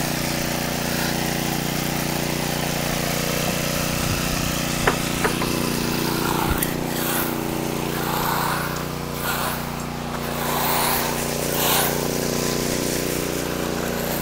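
A small engine running steadily at an even speed, with a couple of sharp clicks about five seconds in.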